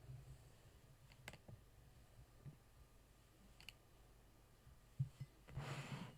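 Near silence with a few faint, sharp clicks, and a short rustle near the end.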